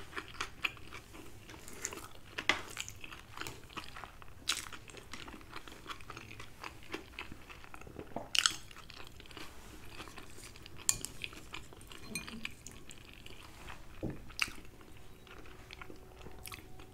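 Close-miked chewing of food, soft wet mouth sounds, with a few sharp clicks scattered through.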